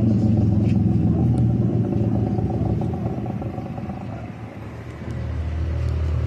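A motor engine running with a steady low rumble. It eases off a little partway through and then picks up again.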